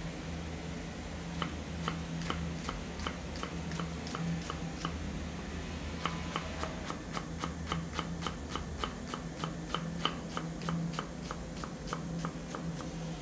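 A large kitchen knife chopping an onion on a wooden cutting board: crisp, regular knife strikes about three a second, with a short pause around the middle and a slightly faster pace after it. A steady low hum runs underneath.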